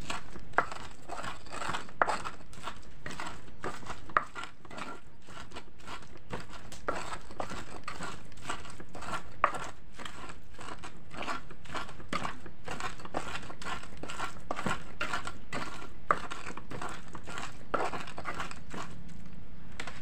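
Stone pestle (ulekan) grinding spice paste in a mortar (cobek), a steady run of rubbing, crushing strokes about two or three a second, with an occasional sharper knock of pestle against mortar.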